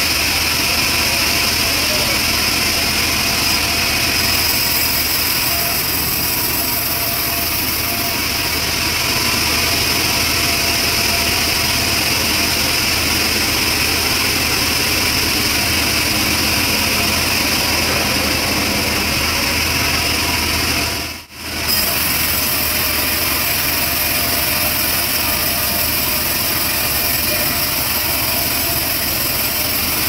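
Sawmill bandsaw ripping lengthwise through a thick trembesi (rain tree) timber: a loud, steady mix of the saw's motor and the blade cutting. The sound briefly cuts out about twenty seconds in.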